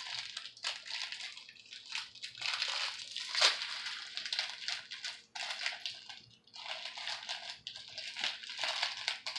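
Small clear plastic bag crinkling and rustling in the hands as it is opened, in irregular stretches, with one sharp crackle about three and a half seconds in.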